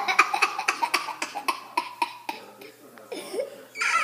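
Young child laughing hard in rapid breathy bursts, with cough-like catches; the laughter eases off in the middle and picks up again near the end.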